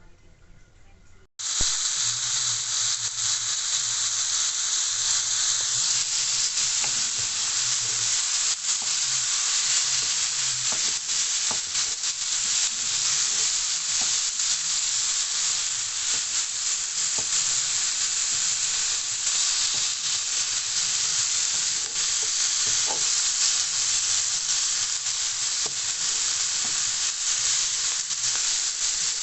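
Food frying in a pan: a steady, dense sizzle with scattered small pops, starting abruptly about a second and a half in.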